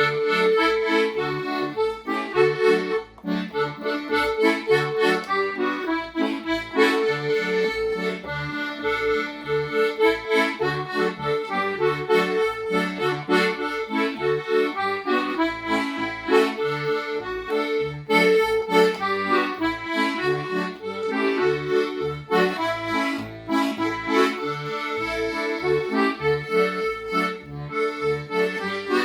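Instrumental break of a gospel song: a melody with held chords over a bass line pulsing at a steady beat.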